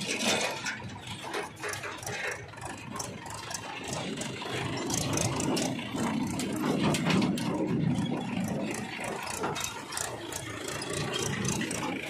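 Mahindra tractor's diesel engine running as the tractor drives past pulling a trailer, with the trailer rattling and clanking over the rough dirt track; it grows louder around the middle as it comes close.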